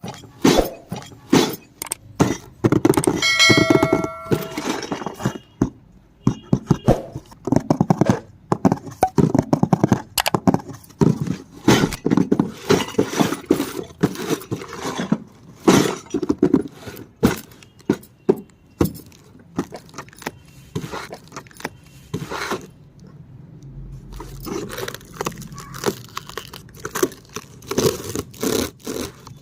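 Small toy kitchen pieces being unpacked and handled: a busy run of clicks, taps and rattles. A short ringing note sounds about three to four seconds in.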